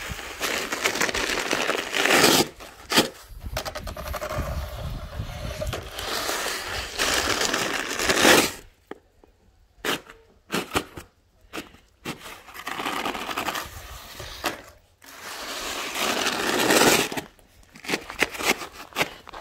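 Snow shovel blade scraped along a driveway in long pushes, each lasting a few seconds, with short pauses and a few knocks between strokes.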